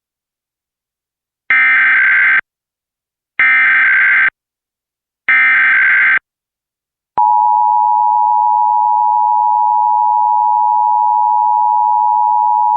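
Emergency Alert System test signal: three short bursts of SAME header data, each a harsh digital screech under a second long about a second apart, then, about seven seconds in, the steady two-tone EAS attention signal starts and holds.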